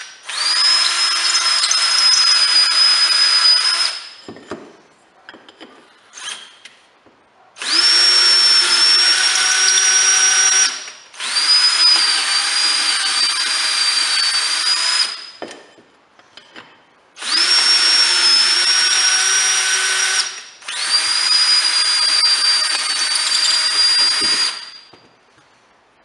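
Cordless drill turning a thread tap to cut threads in the untapped bolt holes of a new Murray mower-deck blade spindle housing. The motor runs five times for three to four seconds each, with short pauses between; its whine rises as each run starts, then holds fairly steady.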